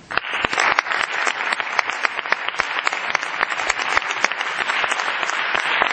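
Audience applauding: many hands clapping at once, starting suddenly and keeping up steadily.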